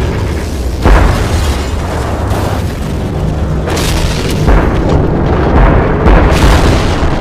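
Explosion and blast sound effects from an animated battle: a dense run of heavy booms, the sharpest about a second in and a cluster between about four and six and a half seconds in, over background music.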